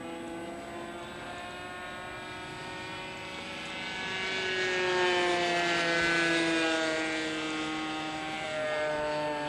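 Supertigre G90 two-stroke glow engine of a radio-controlled model jet running in flight overhead. It grows louder toward the middle with its pitch falling as the model passes, then the pitch rises again near the end.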